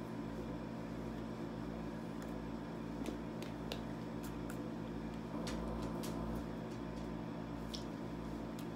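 Steady electrical hum of room tone, holding several even tones, with faint scattered clicks and rustles of hands and clothing as a person signs.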